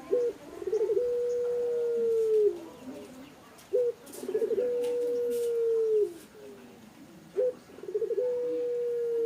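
Zebra dove (perkutut) singing its cooing song three times, about every three and a half seconds: a short opening note, a quick stutter of notes, then a long held coo that drops in pitch at the end.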